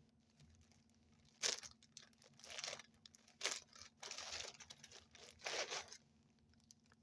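Packaging being torn open and crinkled by hand in several short bursts, as the next item is unwrapped.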